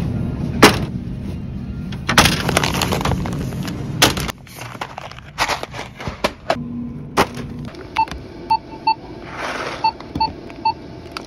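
Clattering and sharp knocks from a shopping cart and the goods in it being handled. About eight seconds in, a run of short electronic beeps starts, typical of checkout barcode scanners.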